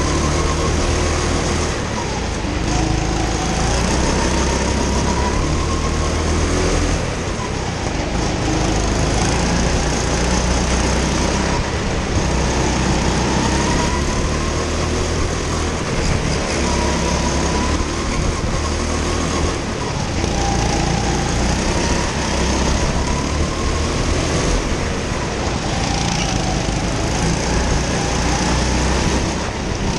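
Go-kart engine heard onboard at racing speed, its pitch rising as it accelerates and falling off into the corners, over and over.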